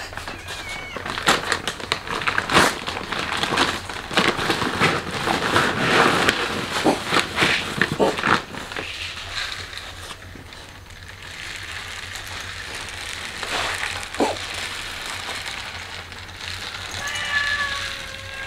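Cats meowing while a plastic bag of dry cat food rustles and kibble is scattered onto a wooden bench, with a dense patter of small clicks for the first half. A single steady meow sounds near the end.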